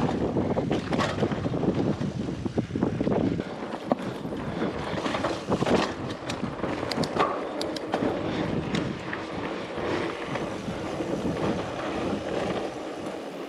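Mountain bike rolling along a dry dirt singletrack: tyre noise on the dirt with scattered clicks and rattles from the bike, mixed with wind buffeting the microphone.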